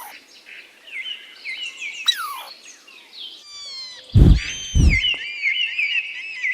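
Squirrel giving repeated short, high chirping calls, some sliding downward, with a quick run of chirps near the end. Two loud thumps come about four and five seconds in.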